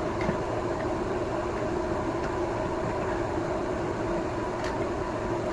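A steady mechanical hum with a few constant tones, like a fan or other running machine, with a few faint light clicks on top.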